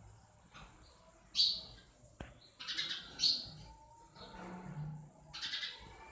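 House sparrows chirping: short, bright chirps repeated several times, with the loudest coming roughly every two seconds and softer chirps in between.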